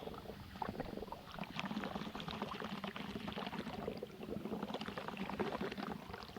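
Smoke bomb burning under soapy bubble solution, its gas bubbling up through the liquid with a dense, irregular crackle of small bubbles popping.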